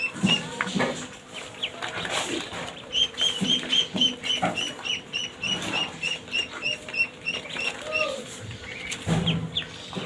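Ducklings peeping: long runs of short, high chirps at about five a second, with scattered short knocks among them.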